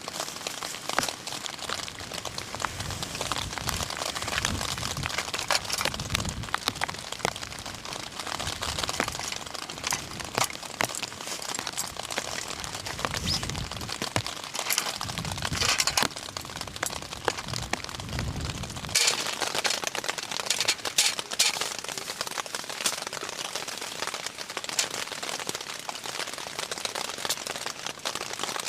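Rain pattering on a tent, a dense spread of small taps and drips with occasional sharper drops. A low rumble under it cuts off abruptly about two-thirds of the way through.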